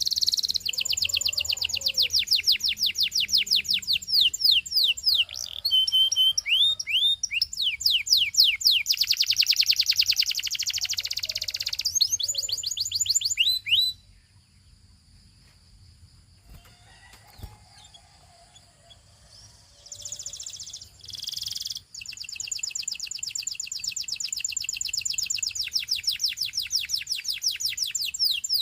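Gloster canary singing in rapid trills of repeated high sweeping notes. The song breaks off about halfway through and picks up again several seconds later.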